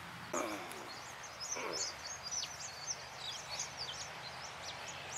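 Birds calling outdoors: two lower, gliding calls near the start, then a quick run of many short, high chirps. A faint steady low hum sits underneath.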